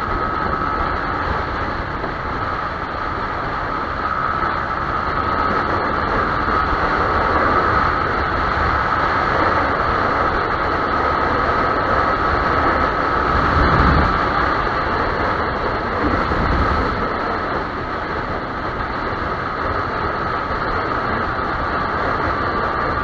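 Yamaha YZF-R15 motorcycle on the move, heard onboard: a steady rush of wind and road noise under a constant high whine.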